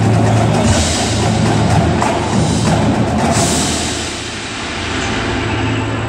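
Indoor percussion ensemble playing: a marching battery of snares, tenors and bass drums together with a front ensemble of marimbas, vibraphones and cymbals. The music dips in level about four seconds in, then swells again.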